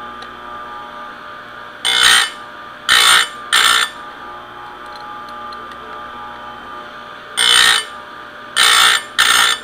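Electric chainsaw chain sharpener: its motor runs steadily while the grinding wheel is lowered onto the chain's cutter teeth. Six short grinding passes come in two groups of three, each sharpening one cutter.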